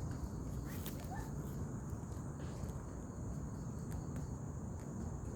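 Crickets trilling as a steady, high-pitched evening chorus over a low rumble, with a few faint clicks.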